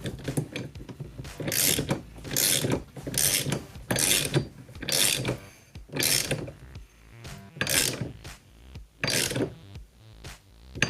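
Ratchet wrench tightening the steering column nut down onto a steering wheel hub: a run of about eight ratcheting strokes, roughly one a second, each a short burst of clicks.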